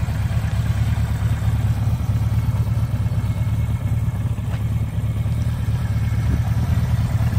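1979 Suzuki GS1000S Wes Cooley's air-cooled inline-four engine idling steadily through its original exhaust.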